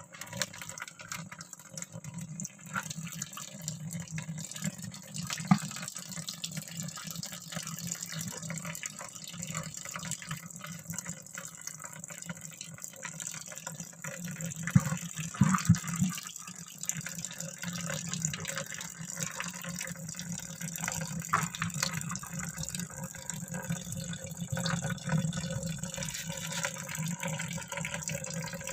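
Water sloshing and splashing in a plastic bucket as hands press and work a mat of sugar-palm fibre down into the shallow water at its bottom, with some dripping. The splashing is a little louder for a couple of seconds about halfway through.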